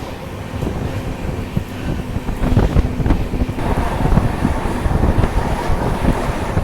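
Passenger train running: a low rumble with the knocking clatter of the wheels on the track, and wind buffeting the microphone. It grows louder about two seconds in.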